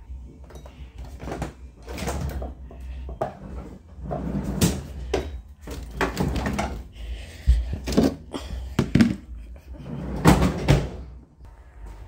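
Handling sounds: a run of knocks, bumps and rustles as things are moved about, with a door being opened and shut, over the low rumble of a handheld microphone being moved.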